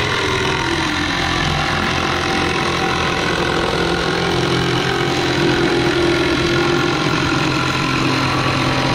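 Kobalt cordless reciprocating saw running steadily, its blade cutting through plywood to trim off excess gusset; the motor's pitch wavers slightly as the blade loads.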